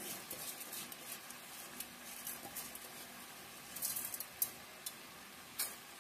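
Faint sizzling and light crackling from a hot pan of fried masala and vegetables with uncooked basmati rice just added, with a small cluster of pops about four seconds in and one sharper pop near the end.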